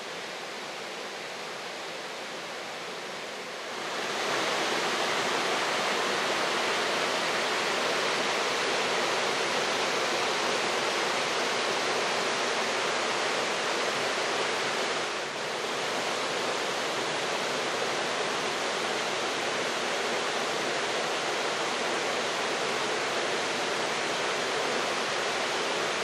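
Steady rush of a rocky mountain stream tumbling down small cascades and rapids in a gorge. Quieter for the first few seconds, then louder from about four seconds in, with a brief dip in the middle.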